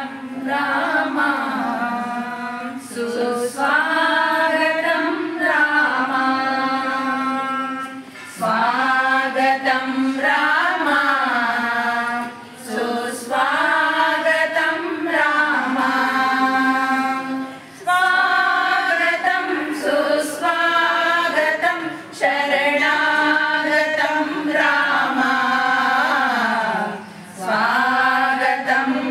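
A group of women singing a devotional bhajan together, in phrases a few seconds long with short breaths between them.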